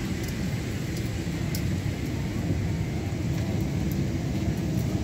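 Steady low hum of a parked Boeing 747's cabin, its air system running, with a few faint clicks.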